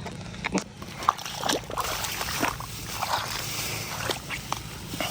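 Irregular splashing and sloshing of shallow water, with scattered short wet slaps and knocks.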